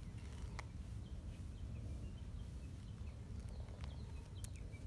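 Quiet outdoor ambience: a steady low rumble with small birds chirping here and there in the background, and a few short sharp clicks, one near the start and two close together near the end.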